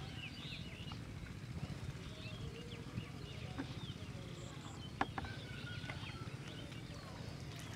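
Outdoor field ambience: scattered small bird chirps over a steady low rumble, with a sharp click about three seconds in and a louder one about five seconds in.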